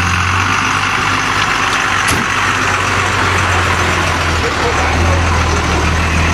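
Diesel engine of a MAN fire engine running slowly and steadily as the truck creeps past, laying a hose line. A single sharp click comes about two seconds in.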